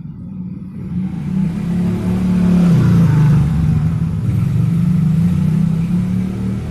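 A motor vehicle engine running close by. It builds from about a second in and is loudest around three seconds, where its pitch drops, then stays loud.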